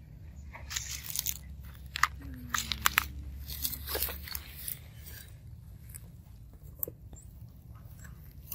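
Wooden hive frames being pried apart and worked loose in a nuc box with a metal hive tool: a run of sharp cracks, clicks and scrapes, most of them about two to four seconds in.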